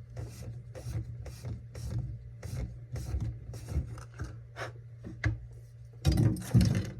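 The end of a Gold Tip carbon arrow shaft is being squared in a 3D-printed arrow squaring jig. It makes repeated short scraping strokes, about two a second, that grow louder about six seconds in.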